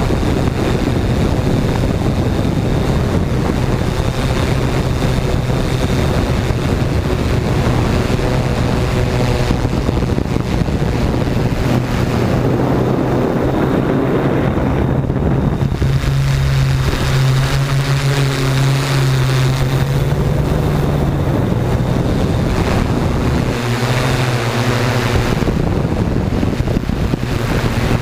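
Multirotor drone's motors and propellers humming steadily, with the hum's pitch stepping a few times, under wind buffeting the onboard camera's microphone.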